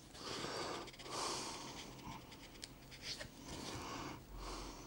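Quiet breathing close to the microphone, a soft breath about every second, with a few faint ticks and rustles from the pages of a paper manual being leafed through.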